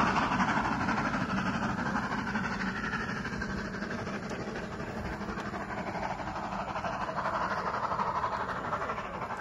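Steam-hauled train behind LMS Jubilee 4-6-0 No. 45562 Alberta receding out of sight, its rumble fading, with a brief swell about seven to eight seconds in.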